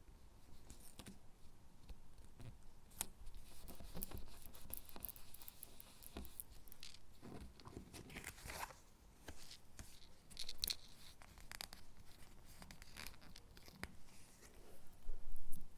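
Stickers being peeled off their backing sheet and pressed onto paper gingerbread cutouts: crackly peeling and paper rustling with small clicks, loudest near the end.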